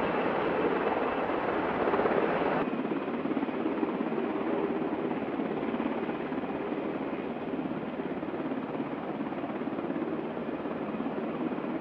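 AH-64 Apache helicopters' rotors and twin turboshaft engines running in a low hover. About two and a half seconds in the sound changes abruptly to a duller, more distant rotor noise from several Apaches.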